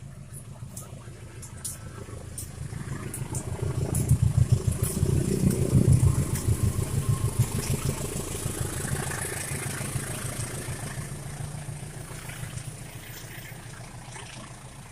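A diesel-hauled train passing by. Engine hum and rapid wheel clatter grow loud about four to six seconds in, then slowly fade.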